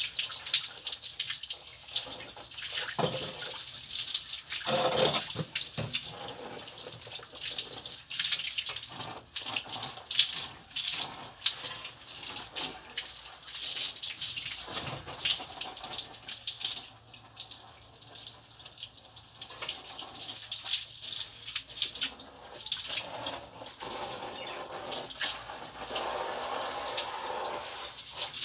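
Water from a garden hose splashing and spattering onto metal patio chairs and the wet floor beneath, a continuous hiss broken by irregular spatters.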